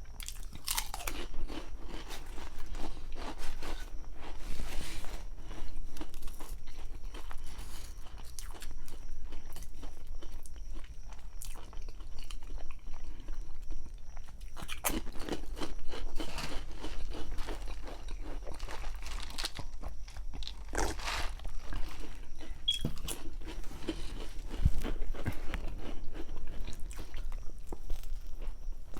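Close-up eating of a grinder sandwich: repeated crunchy bites and chewing, with a few louder crunches partway through.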